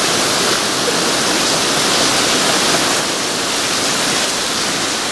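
Heavy storm rain falling steadily, a loud even hiss with no break.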